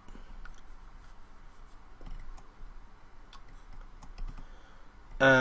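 Faint, scattered clicks of a computer keyboard and mouse.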